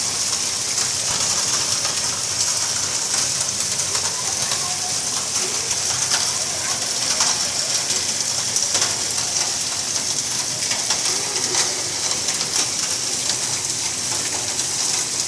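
Heavy rain mixed with hail falling, a steady hiss with faint scattered ticks of hailstones striking.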